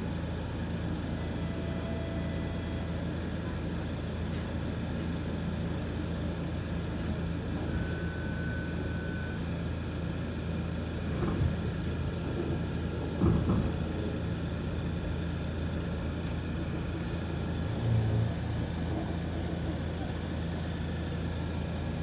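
Steady hum inside a Toronto streetcar's passenger cabin, with a couple of clunks about halfway through.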